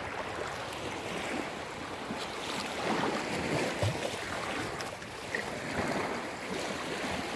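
Small sea waves washing in over shallow water at the shoreline, a steady wash that swells and eases.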